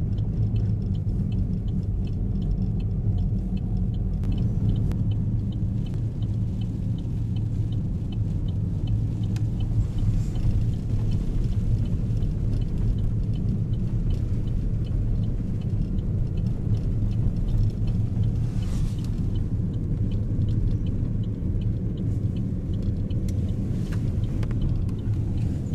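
A car's engine and tyres rumbling steadily while driving on a snowy road, with faint regular ticking in the first few seconds.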